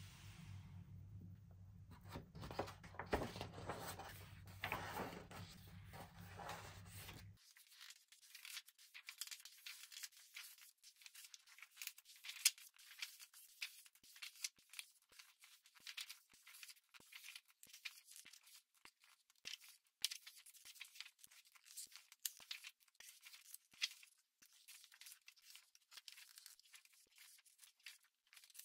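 Paper pages of a paperback sticker book being turned and handled: many quick, irregular rustles and crinkles. A low hum sits under the first seven seconds and cuts off suddenly.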